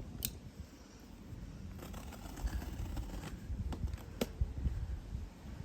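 Someone working at a heavily taped cardboard parcel, trying to get it open: scraping and scratching at the tape and cardboard, with two sharp clicks, one near the start and one about four seconds in.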